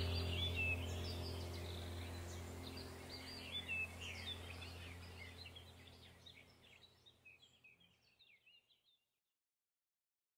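Background ambient music, a low steady drone with birds chirping over it, fading out to silence about seven seconds in.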